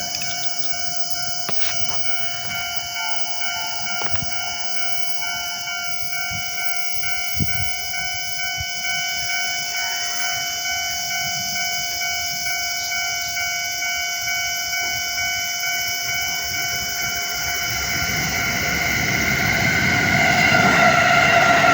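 Japanese railway level-crossing warning bell ringing in a steady repeating pulse. A train's rumble rises under it from about eighteen seconds in and grows loud near the end as the train approaches the crossing.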